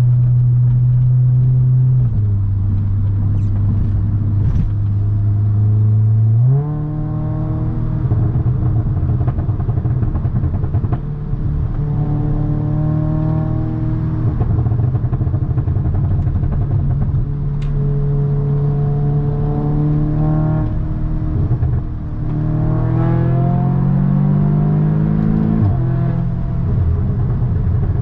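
2017 Audi S3's turbocharged 2.0-litre four-cylinder engine and exhaust on the move. It holds a steady note, then accelerates from about six seconds in, the pitch climbing and dropping back at each of several upshifts.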